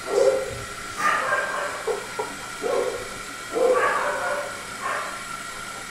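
A dog barking, about six short barks spaced roughly a second apart.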